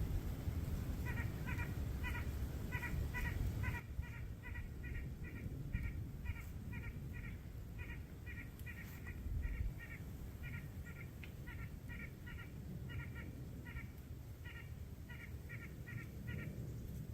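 An animal calling over and over in short, harsh notes, often in pairs, about two to three a second, with a low rumble underneath.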